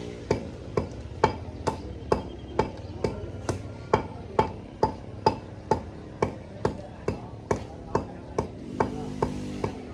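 Rhythmic chopping: sharp strikes on a board, about two a second, steady throughout.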